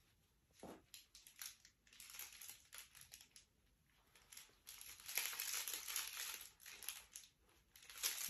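Plush dog toy crinkling and rustling as it is shaken and squeezed in front of a puppy, in irregular bursts, loudest about five to seven seconds in.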